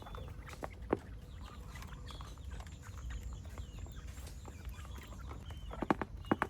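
Chickens clucking quietly, with a few sharp taps near the start and a quick run of them near the end.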